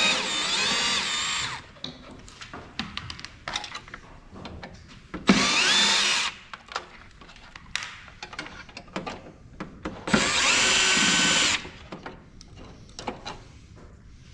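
Cordless electric screwdriver or drill backing out screws from a printer's chassis in three short runs, its motor whine shifting in pitch as it speeds up and slows, with small clicks of screws and parts being handled between runs.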